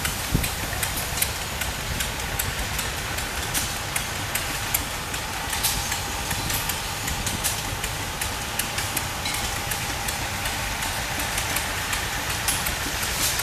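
Engine running steadily with a low rumble and many irregular knocks and clicks. A faint steady whine joins about five seconds in.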